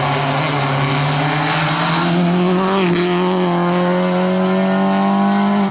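Peugeot 206 rally car engine held at high revs as the car drives past and away on a stage, its note rising slowly with a brief break about three seconds in.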